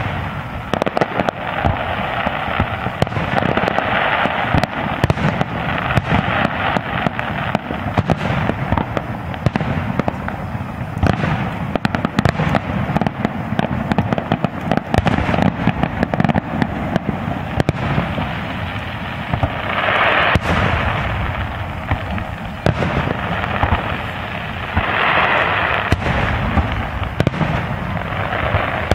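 Aerial fireworks display: shells bursting in a rapid, continuous barrage of bangs and crackles.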